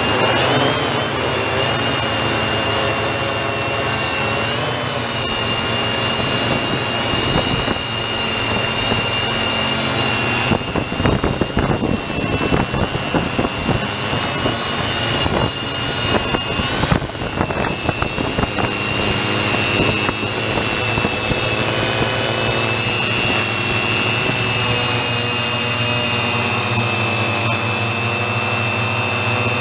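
Quadcopter drone's electric motors and propellers whining steadily, heard from the drone's own camera, with a high tone held throughout. For several seconds in the middle a rough, gusty rumble rises over the whine.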